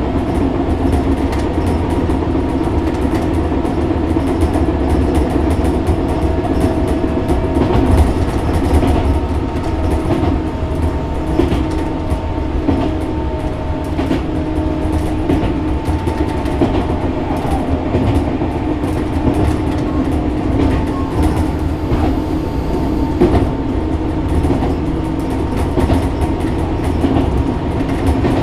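Tobu 6050-series electric train running between stations, heard from inside the motor car behind the driver's cab: the steady hum of its TM-63 traction motors and gearing over a low rumble, with frequent clicks of wheels over rail joints and the rattling of loose doors.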